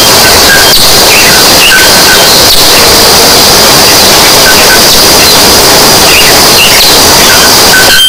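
Bare-throated bellbird (araponga) calling in short, repeated notes at irregular intervals. The call is buried in heavy clipping distortion and hiss from a deliberately blown-out, maxed-volume edit.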